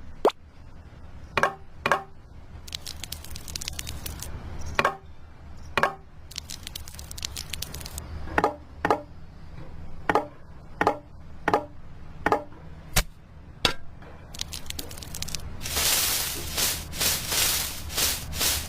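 Mini bricks being handled and laid by hand: sharp clicks and taps of small hard pieces set against each other, often in pairs, over scraping and rubbing, which gets louder for a few seconds near the end.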